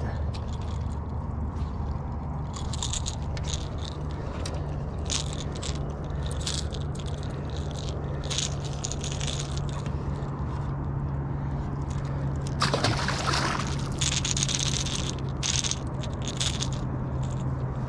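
Clicks, rattles and scrapes of a topwater lure's treble hooks and gloved hands as a striped bass is unhooked, over a steady low hum. A louder burst of noise comes about thirteen seconds in.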